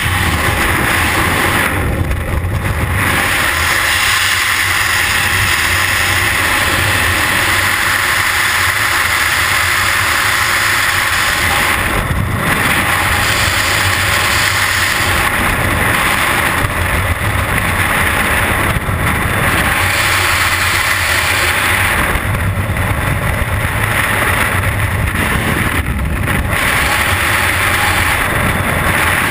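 Loud, steady freefall wind blasting over a helmet or body camera's microphone during a skydive, with the high hiss dulling for brief moments now and then.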